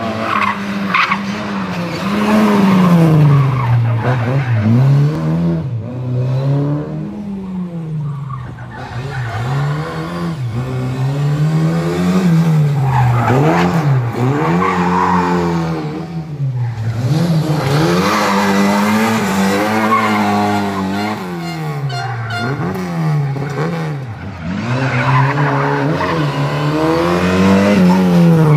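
Lada 2107 rally car's engine revving hard, rising through the gears and dropping off again and again through the bends over several passes, with tyres skidding on the asphalt.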